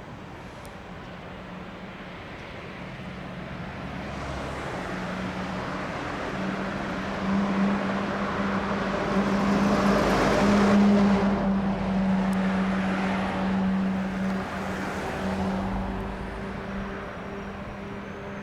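A road vehicle passing by, loudest about halfway through and fading again, over a steady low hum.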